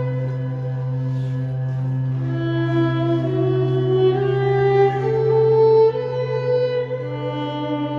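Violin played slowly over a steady low drone, in long held notes. The melody steps upward about midway, then drops back down near the end.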